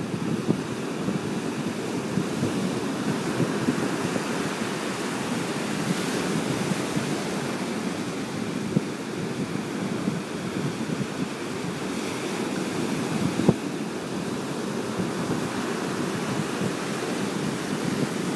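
Ocean surf breaking and washing over the rocks of a stone jetty, swelling and easing every few seconds, with wind on the microphone. A single sharp tap about halfway through.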